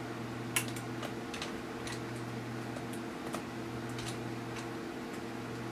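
Scattered faint ticks and clicks of a small screwdriver working the tiny screws that hold a laptop's LCD panel in its frame, over a steady low hum.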